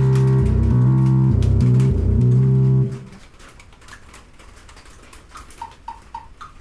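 Keyboard synthesizer playing deep, bass-heavy improvised notes that stop about three seconds in. A quiet stretch with faint clicks follows, and near the end a short electronic blip repeats about four times a second.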